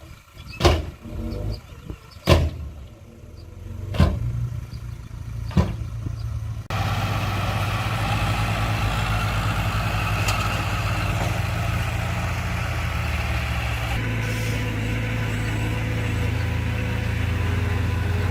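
Four sharp knocks over the first six seconds, then a heavy diesel engine of the earthmoving machinery starts up loudly at about seven seconds in and keeps running steadily.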